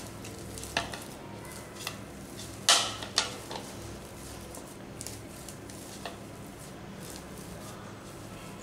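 Hands kneading soft gulab jamun dough of ready mix, mashed potato and milk on a plate. A few sharp clicks and knocks of the plate against the stone counter come through, the loudest two about three seconds in, over a steady low hum.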